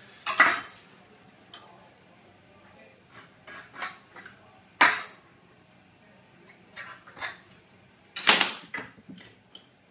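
Steel trunking and marking tools being handled on a wooden workbench: scattered knocks and clatters with softer taps between, the loudest about half a second in, near five seconds and a little after eight seconds.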